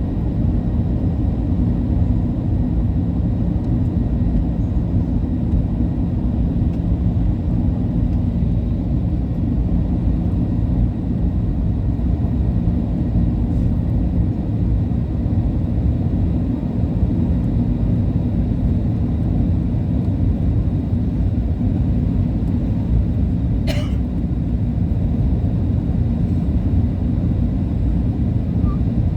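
Steady low rumble of a Boeing 737-800 heard from inside the cabin, with a faint steady hum in it. A single sharp click sounds about two-thirds of the way through.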